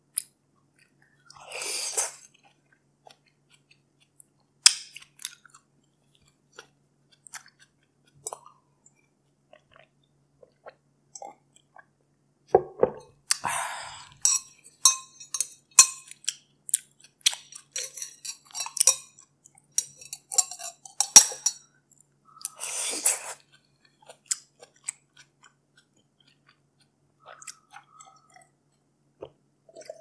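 Close-miked chewing and mouth noises. Roughly halfway through, a metal spoon clinks quickly and repeatedly against ice and the side of a glass for several seconds as an iced drink is stirred.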